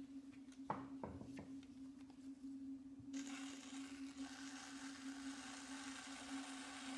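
Shimpo VL Whisper potter's wheel humming steadily, with a few light clicks about a second in. From about three seconds in, a steady hiss of a tool rubbing against the spinning clay vase as its surface is compressed and smoothed.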